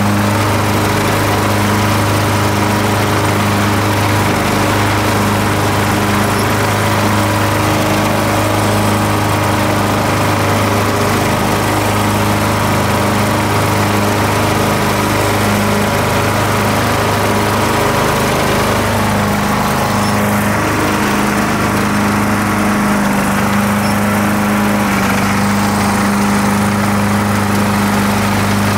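Ariens riding lawn tractor running steadily while mowing, its engine holding an even pitch.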